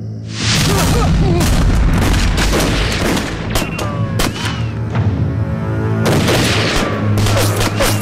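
Volley of rifle fire, many shots in rapid succession starting about half a second in, easing briefly past the middle and then resuming, with bullets ricocheting off stone in short whines. A dramatic film score plays underneath.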